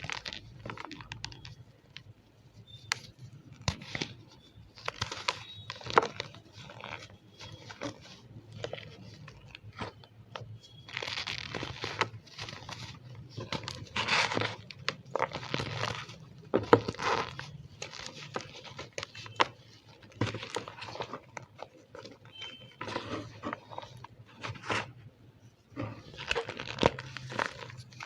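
Gym chalk mixed with cornstarch being squeezed and crushed by hand, giving repeated crunching and squeaking in irregular bursts of a second or so.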